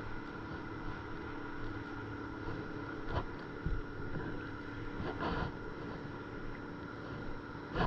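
Steady drone of a fishing boat's engine carried across the water, with a few soft knocks from handling on the paddleboard.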